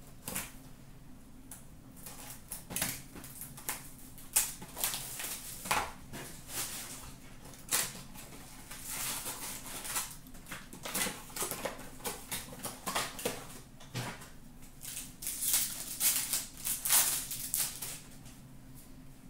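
Foil trading-card pack wrappers crinkling and tearing open, with cards and wrappers being handled in irregular rustling bursts.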